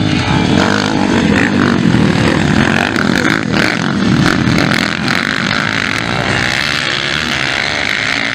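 Several motocross bikes racing, their engines revving up and down.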